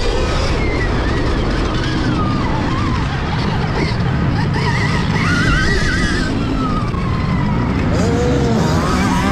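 Stark Varg electric motocross bike being ridden hard on dirt: a motor whine that rises and falls with the throttle, over a steady rush of wind and ground noise.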